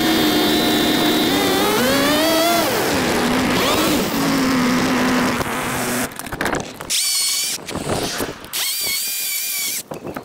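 String trimmer running and cutting grass, its pitch rising and falling once as it works, cutting off suddenly about six seconds in. Then two short, high-pitched whirs from another power tool.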